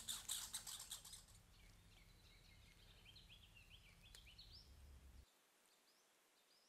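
The faint tail of background music fades out: a rhythmic high pulsing dies away within the first second, and a low drone runs on until it stops suddenly about five seconds in. Faint bird chirps and short song phrases sound over quiet ambience from about two seconds in.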